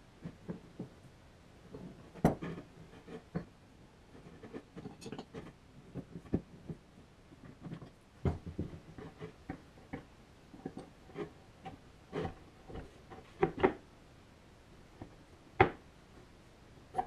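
Irregular light knocks, clicks and scrapes of parts and hand tools being handled at a workbench, with several sharper knocks standing out. No motor is running.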